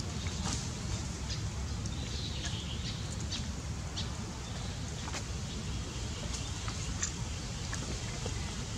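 Outdoor ambience: a steady low rumble, with scattered short, high chirps and clicks over it.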